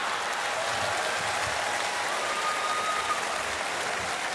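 Theatre audience applauding steadily, with laughter.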